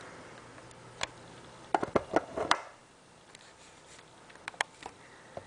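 A scatter of sharp clicks and taps: one about a second in, a quick cluster of louder ones near two seconds, and a few faint ticks near the end.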